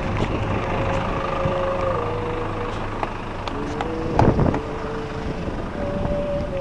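Large vehicle engines idling, a steady low hum that weakens about three seconds in. A few held tones and some clicks sit above it.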